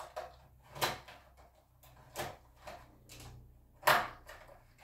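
Several short plastic clicks and knocks as a clear plastic packaging tray of small die-cast toy cars is handled, spaced irregularly, the loudest about four seconds in.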